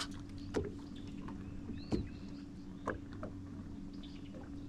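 A steady low hum aboard a bass-fishing boat, broken by three short sharp knocks or clicks spaced about a second apart.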